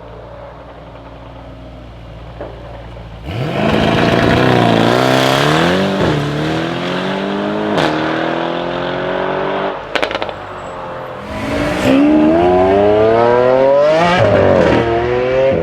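Audi RS6 C8's twin-turbo V8, tuned, through a straight-pipe Capristo exhaust with the particulate filter deleted: idling, then about three seconds in it accelerates hard, the pitch rising and dropping back through several upshifts. Sharp exhaust crackles come around the middle, and near the end it pulls hard again with a long rising pitch.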